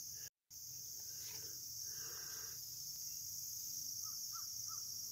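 A steady, high-pitched chorus of insects such as crickets. Near the end a bird calls four times in quick succession.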